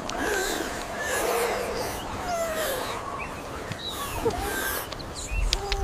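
Outdoor nature ambience: a steady hiss with a few short chirping animal calls scattered through it.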